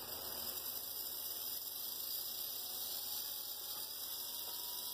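Freshly rebuilt HO-scale Life-Like GP38-2 pancake motor running on the bench, a steady electric hum with a faint whine that rises slightly in pitch partway through. The motor is working, its newly greased gears running in.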